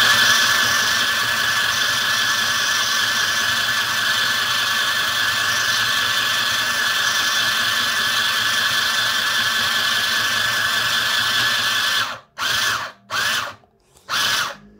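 Mini sewing machine's small electric motor and needle mechanism running steadily as it stitches a line through cotton fabric, with a constant whine. It stops about twelve seconds in, then gives three or four short bursts.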